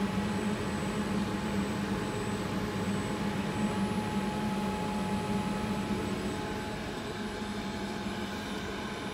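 Steady drone of a running face-mask production machine, with a low hum and thin high-pitched whines, easing off slightly after about six seconds.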